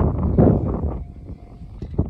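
Wind buffeting the microphone: an uneven low rumble that eases off about halfway through.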